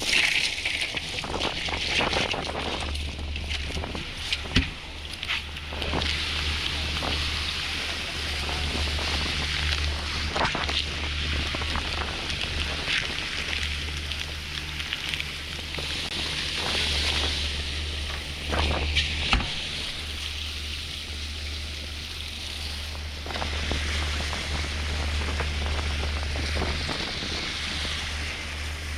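Boat under way: its engine drones steadily under heavy wind noise on the microphone and rushing water, with a few sharp knocks scattered through.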